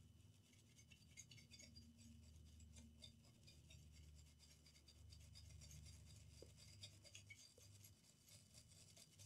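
Faint scrubbing of a small brush on a laptop motherboard wet with alcohol: quick, irregular scratchy strokes, cleaning off liquid-damage residue and dust.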